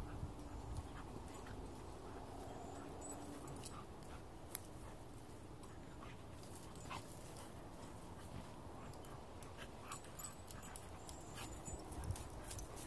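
Dogs playing: a thin, drawn-out whine in the first few seconds, then faint scuffles and scattered light clicks, with one sharp click about four and a half seconds in.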